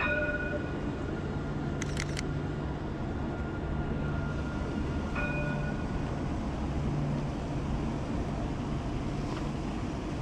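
Steady low rumble of city background noise, with faint tones coming in at the start and again about five seconds in. About two seconds in there is a quick run of three sharp clicks.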